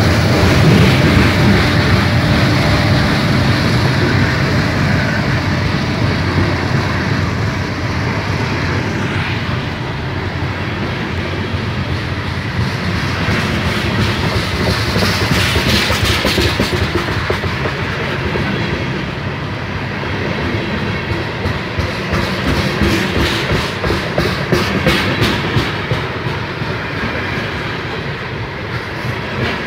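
Freight train cars rolling past close by, their wheels clicking over the rail joints. A heavy low rumble at the start fades over the first few seconds, and the clicking grows sharper and more regular near the end.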